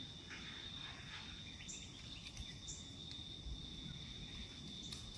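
A steady, single high-pitched insect drone over low background rumble, with a few faint short high chirps.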